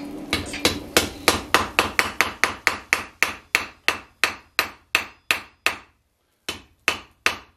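Hand hammer striking a welding-hot steel bar on the anvil face, forge-welding a scarf joint. The blows come in a quick, even run of about four a second, each ringing briefly. After a short pause near the end, a few slower blows follow.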